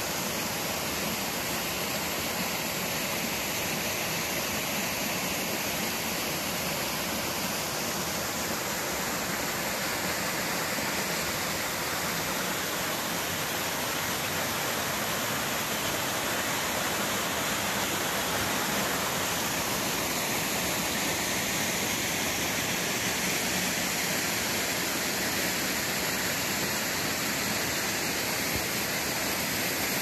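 Shallow stream flowing and splashing over rocks and small cascades: a steady, even rush of water.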